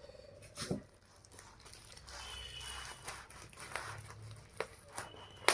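Faint handling of a delivery parcel: a few soft knocks and light rustles as the package is turned over and opened.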